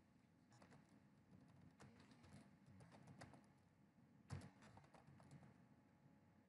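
Faint typing on a computer keyboard: irregular key clicks, with one louder keystroke about four seconds in.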